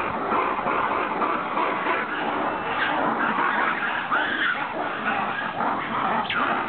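Red ruffed lemurs calling together in their loud, harsh roar-shriek chorus.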